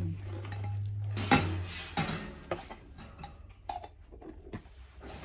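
Metal chafing dish parts clattering and clinking as they are handled and fitted together, loudest about a second in, followed by several lighter knocks.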